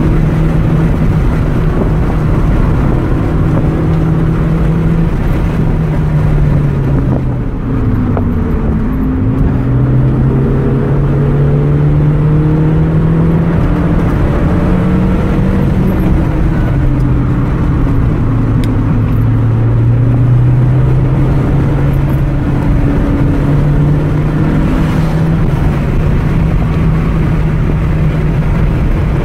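Car engine running hard on a race track lap: a continuous engine note that climbs and shifts in pitch, falls steeply about eight seconds in as the car slows, then builds again.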